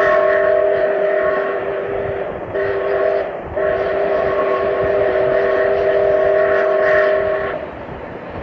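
Canadian Pacific 4-6-2 No. 1201's steam whistle sounding a chord of several notes: a long blast that ends about two seconds in, a short blast, then a long blast of about four seconds, the pattern of the close of a grade-crossing signal. The running train rumbles beneath it.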